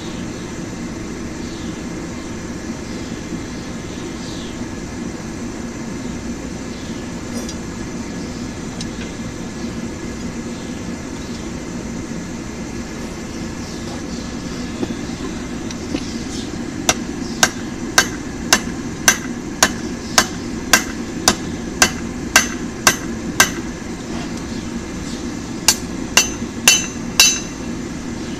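A forge runs with a steady noise, then about halfway through a hand hammer strikes the hot mild-steel bar on the anvil in a run of about a dozen ringing blows, roughly two a second, followed after a short pause by four more blows.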